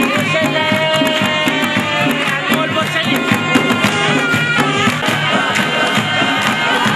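Chitrali (Khowar) traditional dance music: a wind instrument playing a bending melody over quick, steady drum beats.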